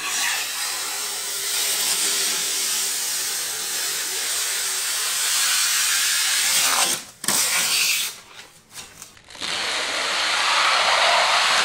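Protective plastic film being peeled off a monitor's plastic back casing: a continuous crackling rustle of film coming away, pausing briefly twice in the second half before starting again.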